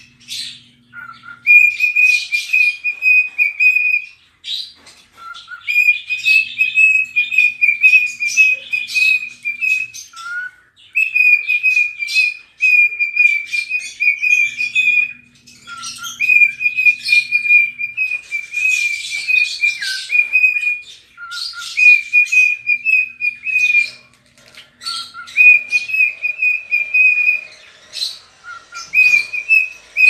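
Cockatiel whistling its song: a phrase repeated over and over, each opening with a short lower note and then held on a high, warbling note for a few seconds, with brief pauses between phrases.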